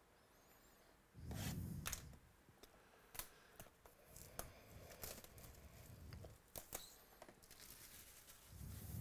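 Plastic shrink wrap being torn and peeled off a sealed trading-card box, with many sharp crinkling crackles. A low muffled sound comes about a second in and again near the end.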